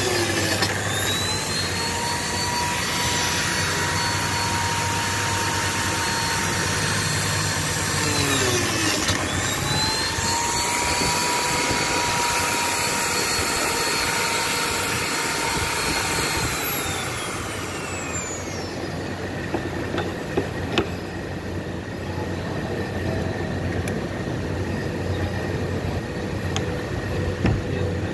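Electric slot-cutting machine for Lamello Clamex P connectors, cutting slots in a melamine-faced particleboard panel. Its motor spins up with a rising whine, runs steadily for about seven seconds and winds down, then does the same again. After that come a few sharp clicks and knocks.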